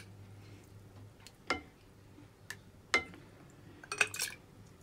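Spoon clinking against the rim of a glass jug while turnip pickle is spooned in: a handful of sharp, separate clinks about a second apart, with a quick cluster near the end.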